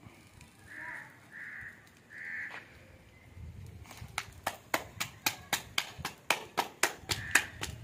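Roti dough being slapped flat between the palms by hand, a quick, even patting of about four slaps a second that starts about four seconds in. Before it, three short bird calls.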